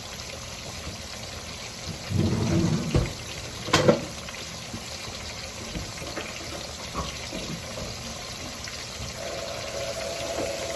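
Fish frying in hot oil: a steady sizzle and bubbling. A sharp knock comes about four seconds in, and a steady hum starts near the end.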